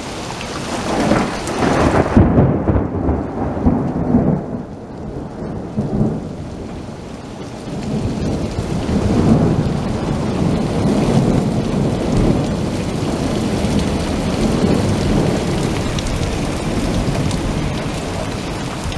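Severe thunderstorm: heavy rain pouring down with gusting wind and rumbling thunder. It is loudest about a second in, eases for a few seconds, then builds again and holds.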